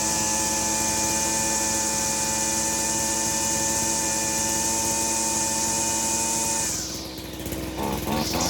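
Small gasoline engine running at a steady speed. About seven seconds in, its sound drops away, and about a second later an engine runs again with a choppy, pulsing beat.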